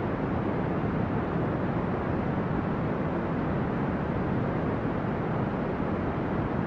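Steady brown noise: an even, deep rushing hiss, heaviest in the low end and dull at the top, with no changes.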